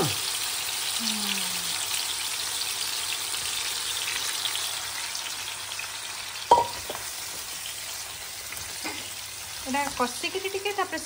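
Masala-coated crab and potato pieces sizzling in oil in a non-stick pan while being stirred with a silicone spatula, a steady hiss that eases slightly. A single sharp knock about six and a half seconds in.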